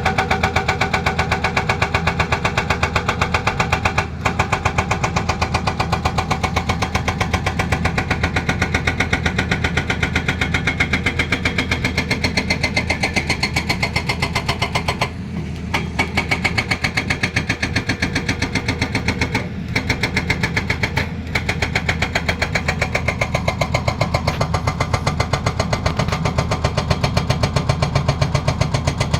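Hydraulic breaker on an excavator hammering in a rapid, even train of blows over the machine's running diesel engine, pausing briefly a few times, longest about halfway through.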